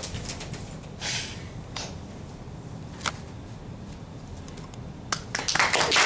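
A few faint scattered clicks, then audience applause breaking out about five and a half seconds in and getting loud.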